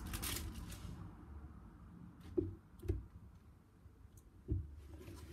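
Craft supplies being rummaged through by hand in a craft box: a brief rustle, then three soft knocks and a few light clicks as items are moved about.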